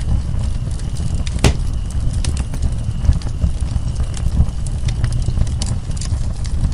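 Wood fire crackling, with scattered sharp pops and snaps over a steady low rumble; one louder pop about a second and a half in.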